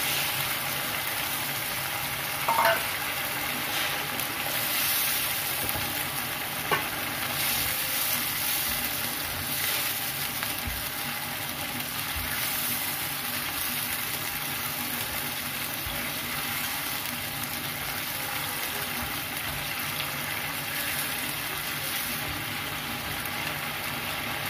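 Shrimp frying and sizzling in a yellow spice sauce in a nonstick frying pan, stirred with a spatula; a steady hiss, with a couple of short spatula knocks against the pan a few seconds in.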